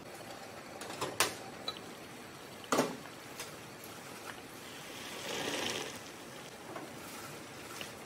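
Sharp knocks and clinks as the glass lid comes off a pot of boiling water, about one and three seconds in. About five seconds in, a brief soft hiss as salt is spooned into the boiling water.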